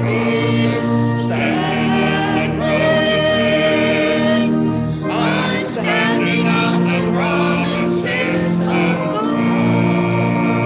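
A small mixed vocal group of two women and two men singing a hymn in harmony, with long held notes.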